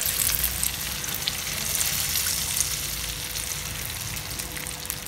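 Melted butter with a little added oil sizzling in a steel pan, with a steady hiss and fine crackles as it foams.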